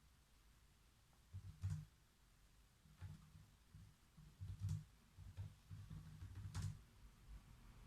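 A few isolated keystrokes on a computer keyboard, each a sharp click with a soft thud, spaced a second or two apart in a near-quiet room: a pause between bursts of typing.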